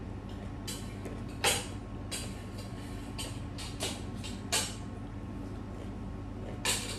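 Crisp, wet crunches of raw cucumber being bitten and chewed close to the microphone, about half a dozen irregular crunches over a steady low hum.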